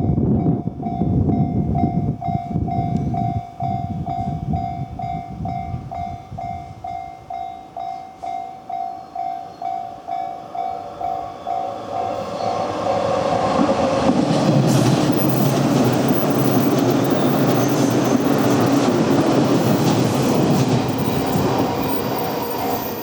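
Level-crossing warning bell ringing at about two strokes a second while a train rumbles past. About halfway through, another train passes loudly, with rumble and wheel clatter that drown out the bell.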